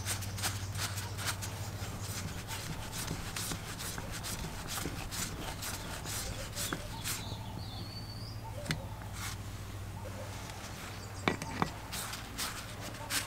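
A screwdriver bit turning small screws into the metal diaphragm plate of a vintage Sprayit diaphragm airbrush compressor: a quick run of light clicks and scrapes that eases off about halfway, then a few sharper clicks near the end.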